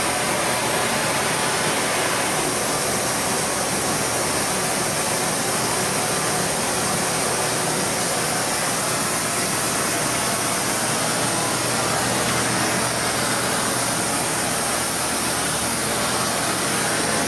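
Gas torch flame burning with a steady hiss.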